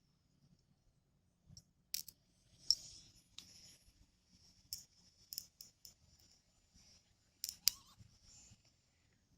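Thin frayed wire arcing across a lawnmower battery's terminals through jumper cables: scattered sharp electrical snaps and crackles, the loudest about two to three seconds in and again near seven and a half seconds, over a faint hiss.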